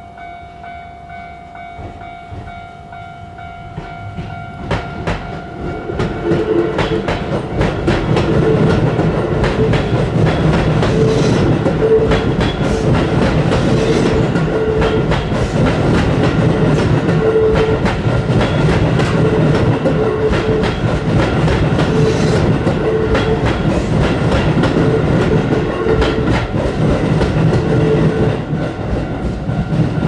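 Level-crossing warning bell ringing in a steady tone, then an electric commuter train on the Keio Racecourse Line running through the crossing from about five seconds in. Its wheels clack over the rail joints, loud against the bell.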